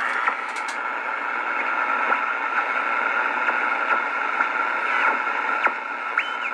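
Hiss and static from a Realistic SX-190 shortwave receiver's speaker as its main tuning dial is turned, with brief whistles sliding in pitch as signals pass. A short steady whistle sounds about six seconds in.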